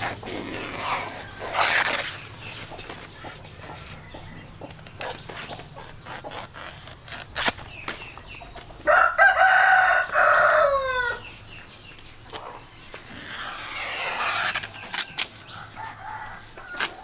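A rooster crows once, about nine seconds in: a call of about two seconds that drops in pitch at the end. Around it, banana leaves rustle and tear as they are handled and trimmed.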